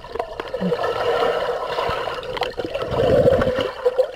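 Muffled gurgling and swishing of pool water picked up by a submerged camera as snorkelers swim around it, with a few small clicks; the sound swells a little about three seconds in.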